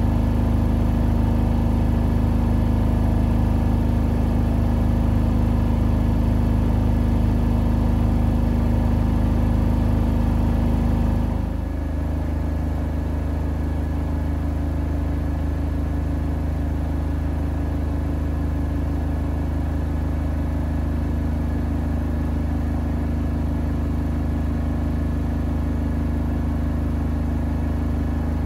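Siemens iQ700 WG56B2090 front-loading washing machine with its drum spinning: a steady motor whine and hum that steps down to a lower speed and a quieter level about eleven seconds in, then holds steady.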